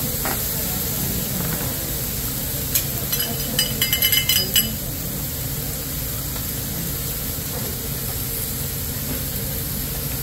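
Food cooking on a hibachi flat-top griddle, a steady sizzle under constant restaurant noise, broken about three seconds in by a quick run of sharp, ringing clinks lasting under two seconds.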